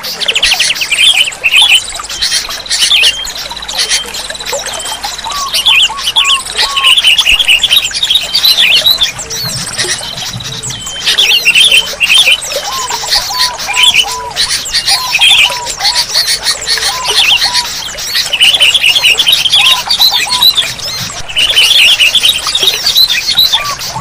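Sooty-headed bulbuls calling over and over: short phrases of rising-and-falling notes alternate with spells of rapid, high chattering, repeating every few seconds.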